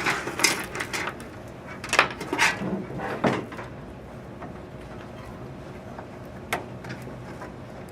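Computer parts and cables being handled in a PC case: a few sharp clicks and knocks in the first few seconds, then a steady low hum with one more click near the end.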